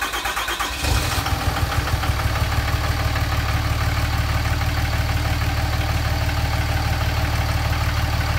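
5.9-litre 24-valve Cummins inline-six diesel cranking on the starter, catching about a second in and settling into a steady idle. It is now running on all six cylinders, with the misfiring number one injector replaced.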